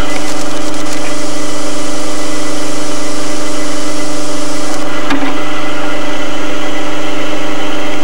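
Drill press motor running with a steady hum while the bit cuts through a metal hinge in a spring-loaded drilling jig, a hiss that stops suddenly about five seconds in, followed by a single click.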